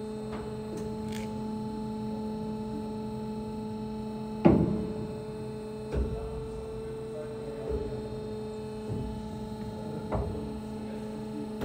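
KASTO KASTOVERTO A 2 automatic metal band saw running with a steady electric hum. About four and a half seconds in there is one loud clunk, then several lighter knocks over the next few seconds as its gripper arm moves and clamps.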